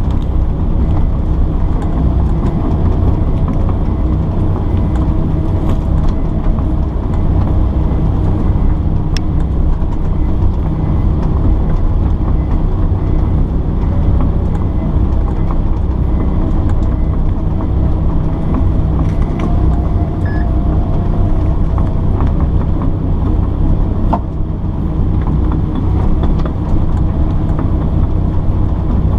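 Kobelco excavator's diesel engine running steadily under work, with a few light knocks.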